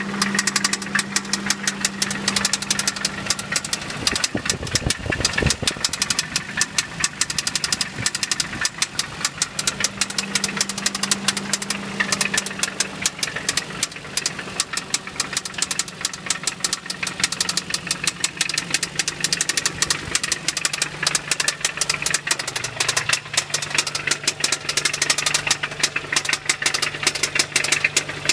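Toyota 22RE 2.4-litre four-cylinder engine idling with a fast, steady knock and tick, its note dropping slightly near the end. The owner suspects a knocking connecting rod and a ticking valve at 223,000 miles.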